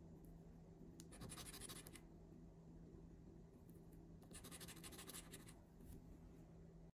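Fingernail scratching the latex coating off a paper scratch-off lottery ticket. It comes in two short bursts of rapid strokes, about a second in and again just past four seconds.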